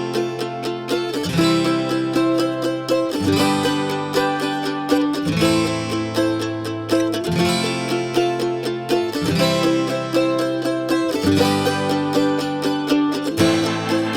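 Instrumental background music: quick repeated notes over a bass line that changes about every two seconds.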